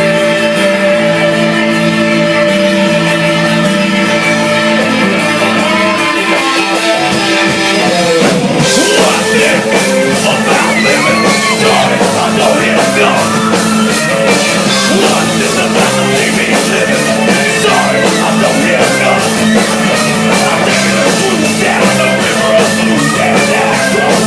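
Live rock band playing at a club gig: a guitar intro of held chords, then about eight seconds in the drums and full band come in with singing.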